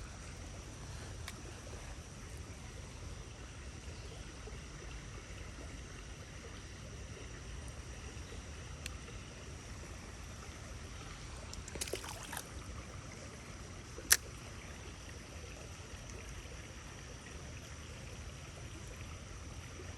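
Steady rush of running water in a small creek, with a thin high steady tone over it. A few faint clicks come about twelve seconds in, and one sharp click a couple of seconds later.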